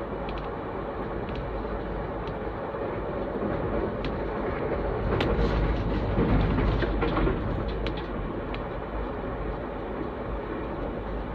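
Passenger train (VIA Rail's The Canadian) rolling along the track, heard from inside the passenger car: a steady rumble with a few sharp clicks, swelling louder about halfway through.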